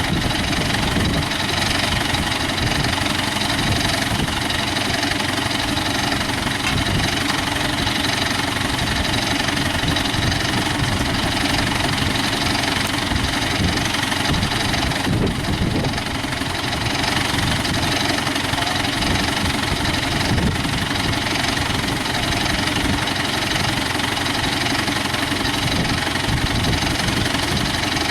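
Diesel engine of an ACE 14XW hydra crane running steadily.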